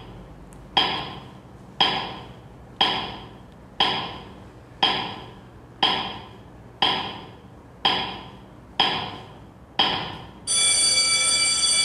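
Ten-second countdown timer sound effect: a clock ticking once a second, ten ticks, then an alarm bell starts ringing near the end, signalling that time is up.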